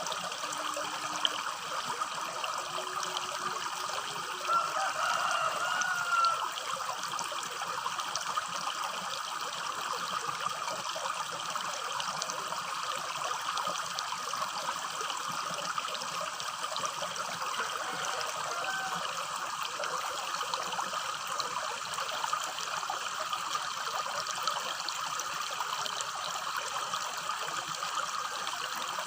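Small rocky stream babbling and trickling steadily. A brief call rises over the water about five seconds in, and a fainter one near eighteen seconds.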